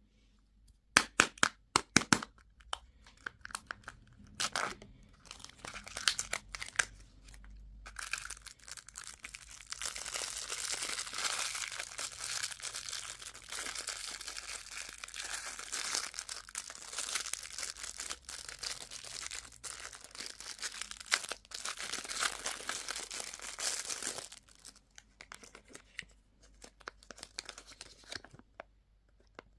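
Candy wrapper being torn open and crinkled close to the microphone: a few sharp clicks about a second in, then a long stretch of dense crinkling and tearing that thins to scattered crackles near the end.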